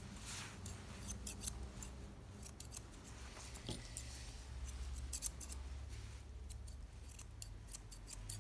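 Grooming scissors snipping through a Maltese's long facial hair, in short runs of quick snips separated by brief pauses.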